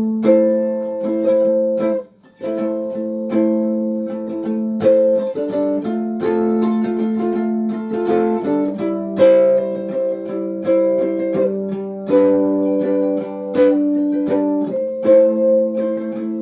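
Homemade cigar box mandolin being picked, playing an instrumental tune: quick plucked notes over ringing, sustained strings, with a brief break about two seconds in.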